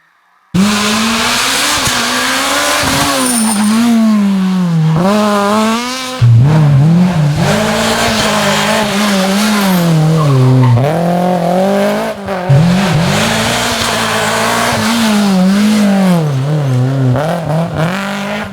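Rally cars at full throttle, engines revving hard and dropping back at each gearshift, over and over. The sound starts suddenly about half a second in and jumps abruptly around 6 and 12 seconds, as passes by different cars follow one another.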